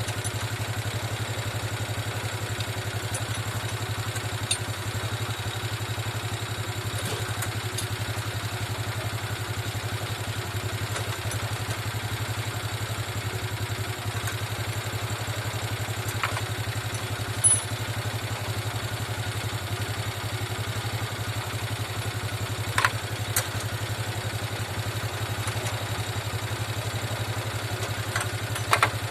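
Motorcycle engine idling steadily, with a few sharp clicks scattered over it.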